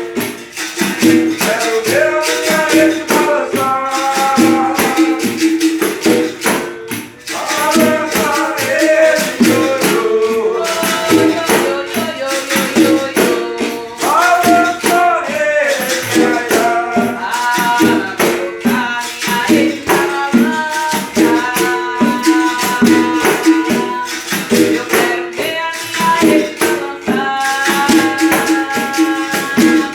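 Capoeira angola music: a voice singing a cantiga over a steady rhythm of shaken rattle (caxixi) and tambourine (pandeiro).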